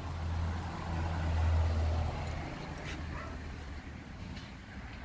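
Low engine rumble of a passing vehicle, swelling to its loudest about a second and a half in and easing off after about two and a half seconds.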